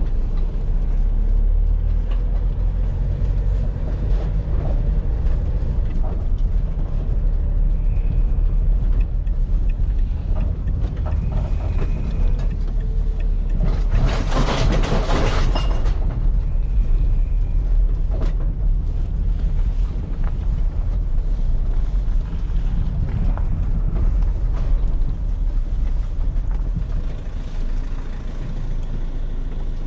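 Steady vehicle engine and road noise heard from inside a moving vehicle. About 14 seconds in, a louder rushing swell lasts a couple of seconds.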